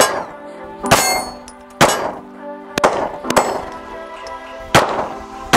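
A ported Smith & Wesson M&P Shield Plus 9mm pistol firing about seven shots, roughly a second apart, each followed by the ring of the steel targets being hit. Background music plays underneath.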